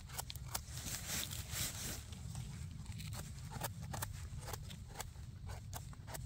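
A small knife scraping and cutting the firm stem bases of porcini mushrooms: a run of short scrapes and clicks, with a longer scraping stretch about a second in.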